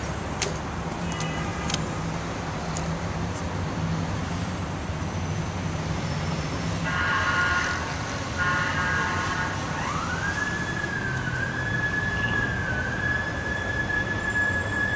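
Steady city traffic rumble; two short blasts come about seven and eight and a half seconds in, then a siren rises at about ten seconds and holds a high, slightly wavering tone.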